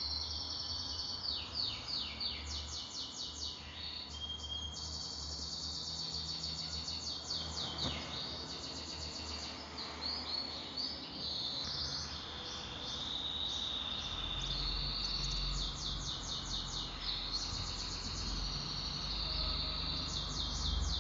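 Small birds chirping and trilling over and over, in quick high runs, with a low steady hum underneath.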